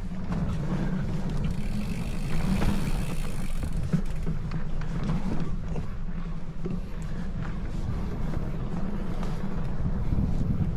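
Wind buffeting the microphone during a bicycle ride, a steady low rumble, with scattered light clicks and knocks from the bike and trail.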